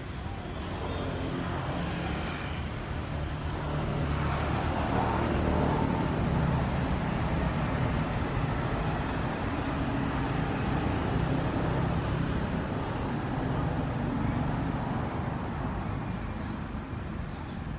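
A motor vehicle's engine running nearby, a low steady rumble that builds over the first few seconds, holds, and eases off near the end.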